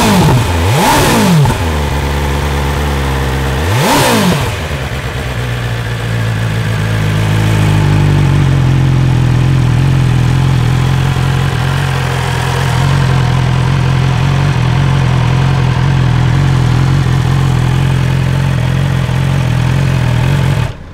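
2020 BMW S 1000 XR's inline-four engine, warm, running through its stock Euro 5 silencer. It gets a few quick throttle blips in the first four seconds or so, then settles to a steady idle.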